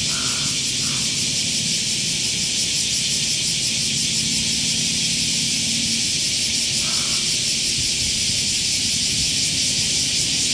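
Steady, shrill chorus of insects, a continuous hiss with a fine rapid pulsing, over a faint low hum.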